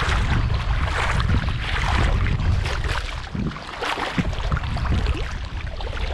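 Footsteps wading through shallow seawater, splashing irregularly with each stride, over a low rumble of wind on the microphone.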